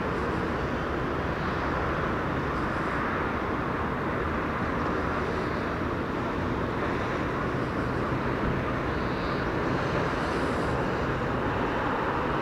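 Steady hum of distant city traffic, an even rushing noise with no distinct events.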